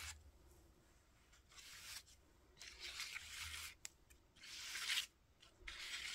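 Ink pad dragged lightly across crumpled brown paper-bag paper in about four short strokes, each a faint papery scraping swish.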